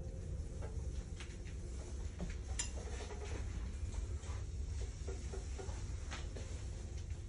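Room tone of a ship's suite: a steady low hum with scattered light clicks and taps.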